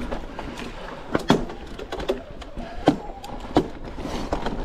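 Niner WFO e9 mountain bike rolling down a dirt trail: a steady rush of tyre and riding noise, broken by four sharp knocks and rattles as the bike hits bumps.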